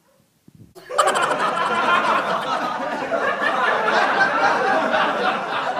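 A crowd of people laughing and chattering, starting suddenly about a second in after near silence.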